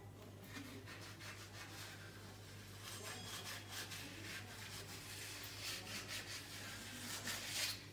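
Paint being brushed onto a wall: repeated rasping rub strokes, coming thicker after about three seconds and loudest just before the end, over a steady low hum.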